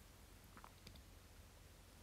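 Near silence: room tone with a few faint light clicks and taps about half a second to a second in, as a resin mixing cup is set down on a paper-covered table.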